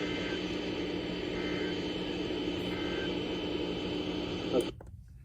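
NOAA Weather Radio broadcast from KJY86 played through a receiver: a steady hiss and hum with three faint, short data chirps, evenly spaced about a second and a half apart. These are the EAS end-of-message tones closing the alert, weak because of a problem at the station. About four and a half seconds in there is a click and the broadcast audio cuts out.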